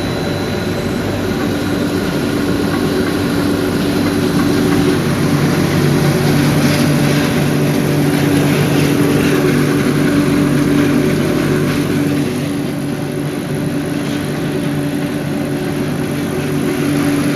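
Pet food production line machinery running: a steady mechanical hum of motors with a couple of held low tones, a little louder in the middle and easing off after about twelve seconds.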